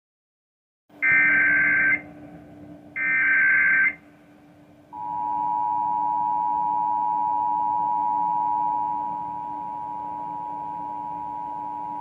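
Emergency Alert System test, heard through a TV's speaker: two short warbling SAME header data bursts about a second apart. Then the steady two-tone EAS attention signal begins and holds for about eight seconds, dropping somewhat in loudness partway through.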